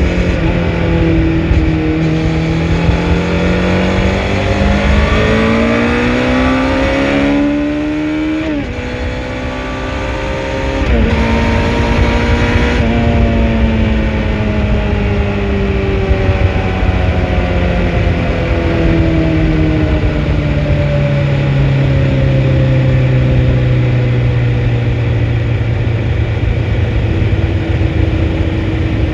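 A 2004 Honda CBR1100XX Blackbird's inline-four engine pulling up through the revs, with gear changes about eight seconds in and again around eleven seconds. After that the revs fall slowly for the rest of the time.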